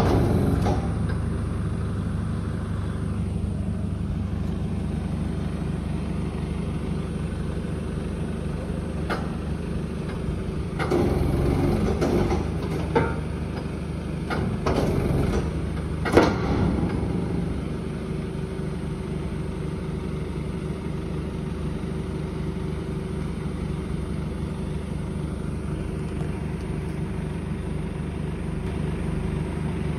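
Garbage packer truck's engine idling steadily, with a few short knocks about eleven to thirteen seconds in and again at sixteen seconds.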